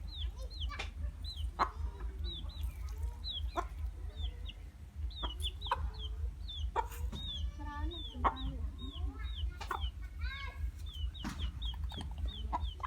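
Chickens clucking, with many short, high, falling peeps a few times a second throughout and scattered sharp clicks, over a steady low rumble.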